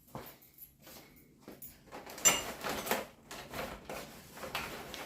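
A series of irregular scraping and rubbing handling noises, the loudest a little over two seconds in.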